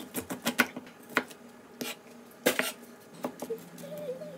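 Kitchen knife cutting kernels off a corn cob and chopping them on a wooden cutting board: irregular sharp knocks of the blade on the board, several in quick succession in the first second, the loudest about two and a half seconds in.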